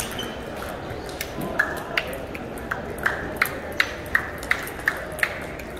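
Table tennis rally: the celluloid-type plastic ball clicking sharply off paddles and table in quick alternation, about three hits a second, starting about a second in. A steady background murmur runs underneath.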